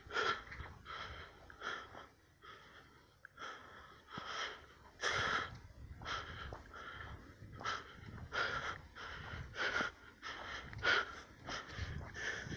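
Footsteps crunching in snow, about two steps a second, with a short lull about two seconds in.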